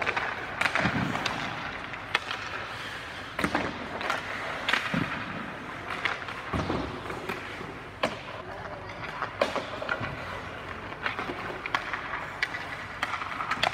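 Hockey skates scraping and carving on rink ice, with irregular sharp cracks of sticks striking pucks and pucks hitting the boards and net, ringing out in a hard-walled arena.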